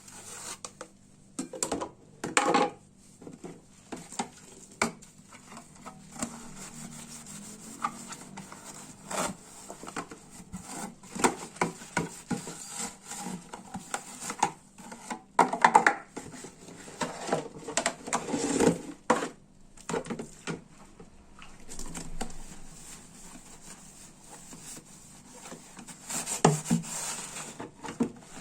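Household objects being handled and set down while cleaning: irregular knocks, clatters and rubbing, with a few louder knocks spread through.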